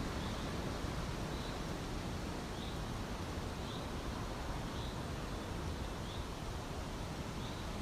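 Outdoor ambience: a steady background hiss, with a short high chirp repeating about once a second.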